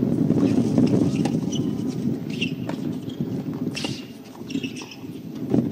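Tennis rally on a hard court: a ball struck back and forth with rackets and bouncing, as a series of sharp knocks over a steady low rumble of outdoor court sound.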